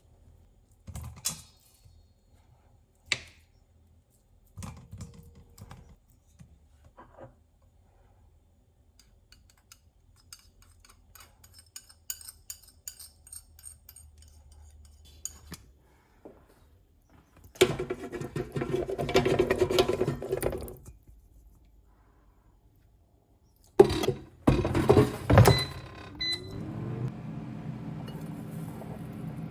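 Kitchen utensils and dishes being handled: scattered clinks and knocks, then two louder, longer stretches of busy clattering and scraping about two thirds of the way through.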